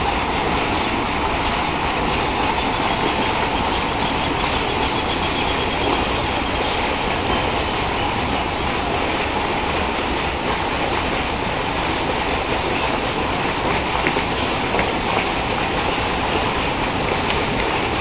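Lake fountain jet's water falling and splashing back into the lake: a steady, even rushing.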